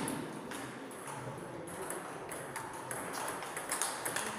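Celluloid-type table tennis ball clicking sharply off the bats, the table and the floor in a string of single ticks, irregularly spaced about half a second to a second apart.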